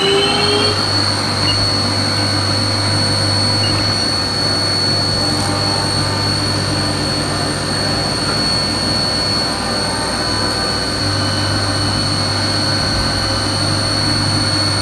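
CNC vertical milling machine spindle running with a steady high whine and low hum while its cutter mills across a metal block. Its tones climb briefly in the first second, then hold steady.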